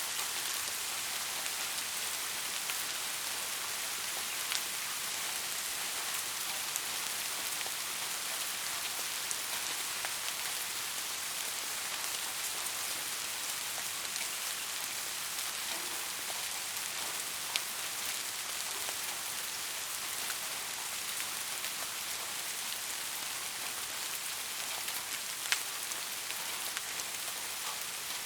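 Steady rain falling, an even hiss with a few sharper single-drop ticks here and there.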